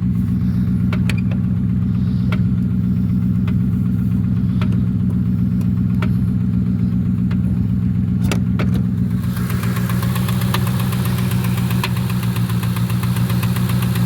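Ford 4.6-litre two-valve V8 of a 1996 Mustang GT idling with a repeated knock and tap over its steady hum; sharp ticks come about once a second, and about nine seconds in a faster, brighter ticking comes in. The owners take the tapping for a piston hitting a valve in a bad motor.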